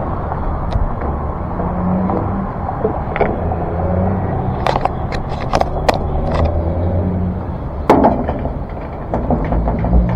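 Vehicle engine idling steadily, with a run of sharp clicks and knocks about halfway through and a single thump a little later.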